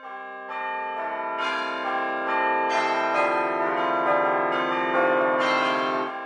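Bells ringing, struck one after another about once or twice a second, each tone ringing on so the notes pile up, then cutting off abruptly near the end.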